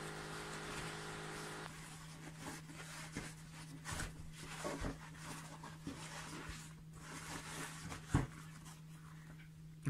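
Tissue paper rustling and crinkling as hands unwrap it, in soft scattered rustles with a few light knocks, the sharpest about eight seconds in. A faint steady hum runs underneath.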